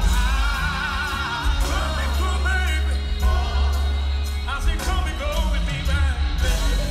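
Live soul and R&B concert music: a band with heavy, steady bass and a voice singing held, wavering notes.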